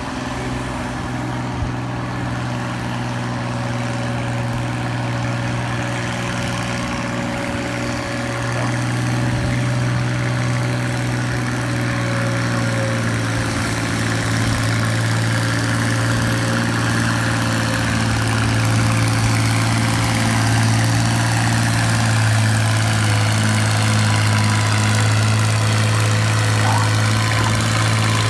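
Massey-Harris 101 Super tractor's six-cylinder engine running under load at a steady pitch while it drags a weight-transfer pulling sled. It grows gradually louder as the tractor comes closer.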